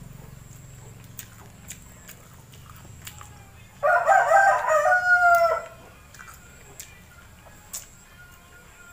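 A rooster crows once, loud, about four seconds in, lasting under two seconds and ending on a drawn-out, slightly falling note. Around it are faint, scattered clicks of eating with the hands.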